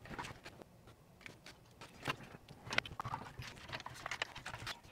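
Faint, irregular small clicks and taps of a circuit board and hand tools being handled.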